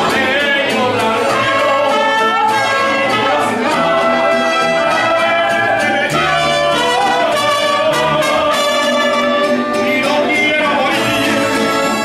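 Live mariachi band playing a song, with violins, accordion and guitarrón.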